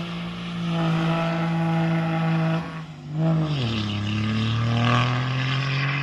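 2004 Dodge Ram 2500's 5.9 L Cummins diesel, fitted with an S366 turbo, running loud as the truck drives past. Its steady drone drops in pitch a little after halfway, with a hiss over it in the second half.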